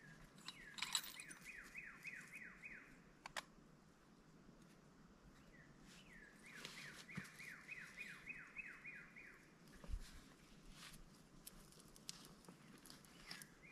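A bird singing faintly: two phrases of about eight quick whistled notes, each note sliding down in pitch, one near the start and one from about six and a half seconds in. Scattered clicks and a single low thump near ten seconds.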